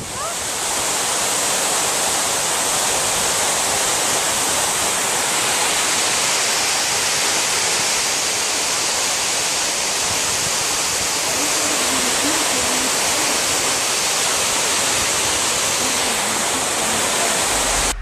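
Steady, loud rush of water raining down inside a power-station cooling tower, like a waterfall.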